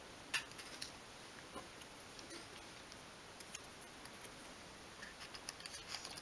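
Faint, scattered light ticks and taps from small wooden parts and a thin glue-applicator stick being handled on a craft cutting mat; the loudest tick comes just after the start.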